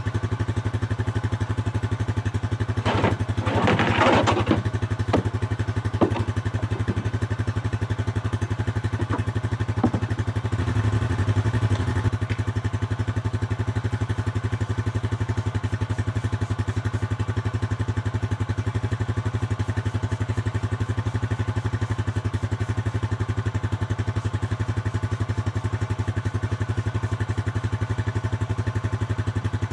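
Vehicle engine idling steadily with an even pulse. About three seconds in comes a burst of clatter, followed by a few single knocks over the next several seconds.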